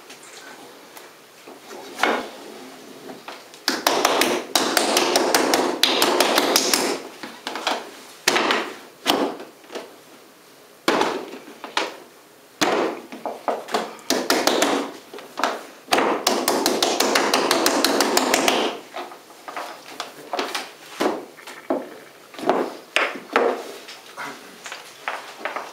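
Wooden tools knocking on clay on a worktable: two long runs of quick, rapid strikes, with scattered single knocks and taps between them.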